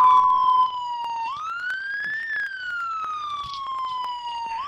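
Police siren wailing. The pitch sinks slowly, sweeps up quickly about a second in, sinks slowly again for over two seconds, and starts to climb again near the end.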